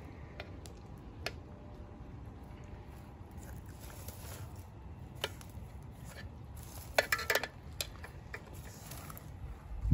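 A metal spoon clinking against a steel cooking pot and a metal serving tray as soft stuffed vegetables are lifted out and set down, with a few scattered clinks, a quick run of louder clinks about seven seconds in and a soft thump near the end, over a steady low rumble.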